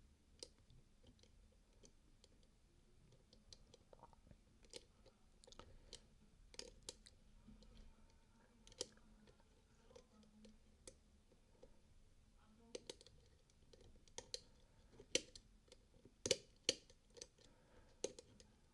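Faint, irregular metallic clicks and ticks of a filed bent-wire pick working the levers of a Lowe & Fletcher 7-lever locker lock held under light tension, with a louder run of clicks near the end.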